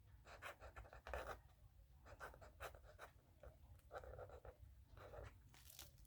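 Faint scratching strokes of a pen or marker drawing on paper, short and irregular as letters are outlined and widened.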